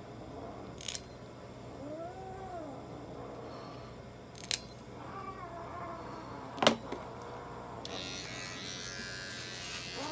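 A cat meowing twice, each call rising and falling, while nail clippers snip its claws with three sharp clicks, the last the loudest. Near the end a small electric nail trimmer starts a steady high buzz.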